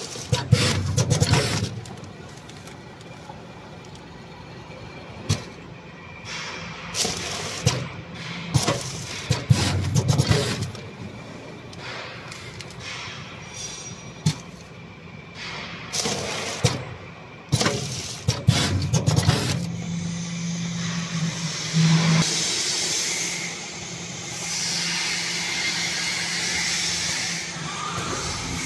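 Vertical powder packing machine running through its bagging cycle: clusters of clicks and clunks from the sealing jaws and bag mechanism with bursts of air hiss, repeating about every nine seconds. A steadier hiss takes over in the last third.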